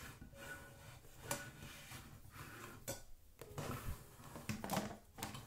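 Ceramic plates and a plastic container lid clacking and scraping against the wooden pegs of a bamboo dish rack as they are handled: a few sharp knocks over light rubbing, the loudest near the end.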